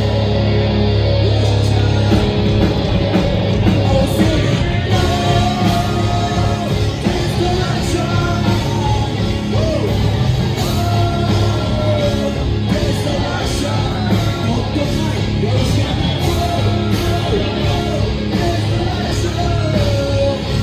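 Live rock band playing loudly in a concert hall, with guitars, drums and a heavy bass line, and a vocalist singing and shouting over it into a microphone, all heard through the PA from within the audience.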